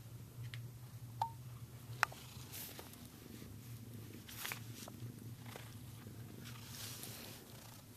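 Domestic cat purring steadily while biting and pawing a fabric toy. There are two sharp clicks, about one and two seconds in, and a few soft rustles of the cloth.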